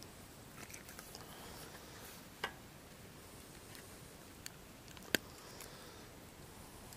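A few sharp clicks and taps over a faint background as a small bass just caught on a line is handled and gripped by the lip. The loudest click comes about five seconds in.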